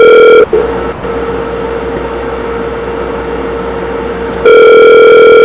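Telephone ringback tone heard over the line: a loud, distorted steady ring ends about half a second in, then a quieter gap with line hiss and a faint hum, and the next ring starts near the end. This is the call ringing through to a store department after a menu choice.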